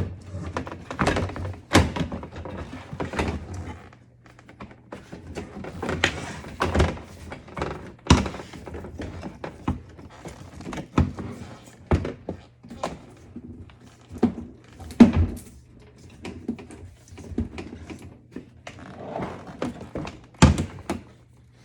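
Irregular knocks and clunks of hand work on a dishwasher door and control panel, about one every second or two, with several louder thunks. A faint steady low hum runs underneath.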